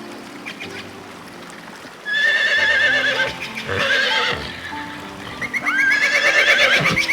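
Whinnying calls of a horse-like animal, in two loud quavering bouts starting about two seconds in and again about five and a half seconds in, over background music.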